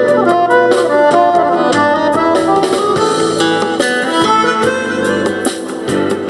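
Accordion playing a quick instrumental melody over a MIDI backing track with a steady beat.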